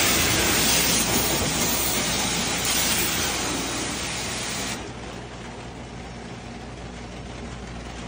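AR630-TSS pressure washer spraying water onto a stainless steel kitchen exhaust hood and plastic sheeting: a loud, steady hiss that cuts off about five seconds in as the spray stops. The washer's motor and pump keep running with a quieter, low steady hum.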